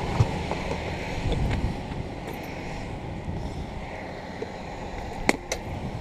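Low, steady vehicle rumble, with two sharp clicks close together near the end.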